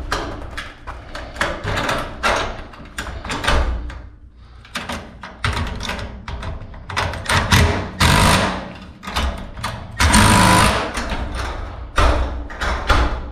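Cordless impact driver running in short hammering bursts, driving fasteners into a garage door's steel track bracket, mixed with knocks and clanks of the metal track and bracket being handled.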